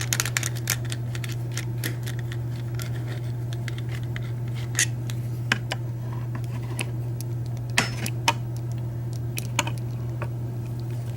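Scattered metallic clicks and scrapes of a screwdriver working a small screw out of a hardened-steel padlock, with sharper ticks about five and eight seconds in, over a steady low hum.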